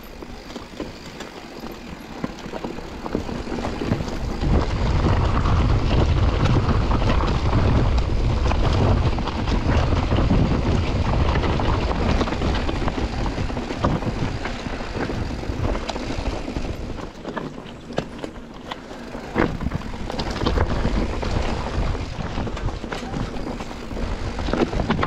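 Mountain bike being ridden along a trail: a steady rumble of wind on the microphone over tyre and trail noise, strongest in the first half. In the second half the bike's clicks and knocks over rough ground come through.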